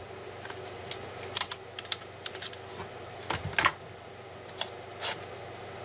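Scattered light clicks and taps of a cordless multi-tool and its attachment heads being handled, with a few louder knocks near the middle and toward the end.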